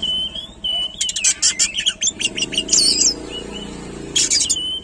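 Oriental magpie-robin (kacer) singing in full, lively song: clear whistled notes at a steady pitch alternating with rapid runs of chattering, scratchy notes.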